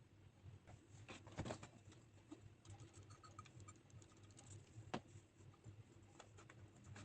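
Quiet handling of tiny kitchen utensils: a few taps, then a quick patter of small clicks and ticks, and one sharper click about five seconds in.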